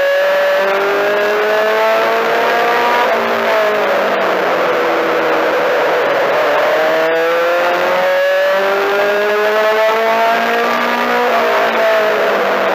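Four-cylinder Mini-Stock race car's engine heard from inside the car at racing speed: it climbs in pitch as it pulls down a straightaway, then drops sharply as the driver lifts for the turn, twice. A steady rush of tyre and wind noise fills the corners.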